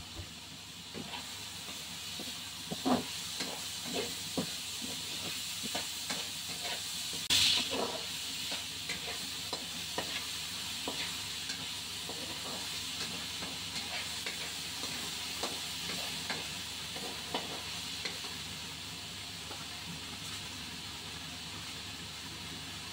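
Sliced chorizo and diced carrots sizzling in a pan with a steady frying hiss, while a spatula stirs and scrapes against the pan in short strokes. The loudest scrape comes about seven seconds in. The stirring stops at about 18 seconds, leaving just the sizzle.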